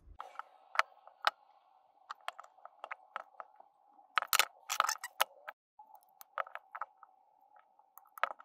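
Metal pliers being handled and worked: irregular sharp clicks and clinks as the jaws open and close and the tools knock against each other, the busiest stretch about four to five seconds in, over a faint steady hum.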